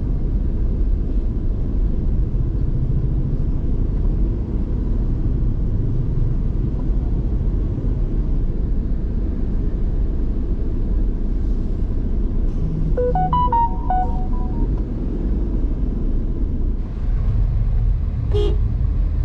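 Car cabin with a steady low engine and road rumble as the car creeps along a crowded street. About two-thirds through, a vehicle horn plays a quick run of several notes, and near the end there is another short horn beep.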